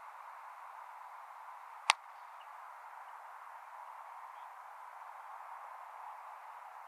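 A single sharp crack of a cricket bat striking a ball, about two seconds in, over a steady hiss.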